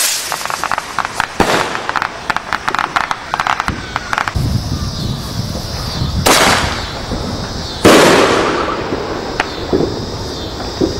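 Consumer fireworks: a rapid run of crackling pops for about four seconds, then two loud booms a second and a half apart, about six and eight seconds in. The second boom is the loudest and dies away slowly.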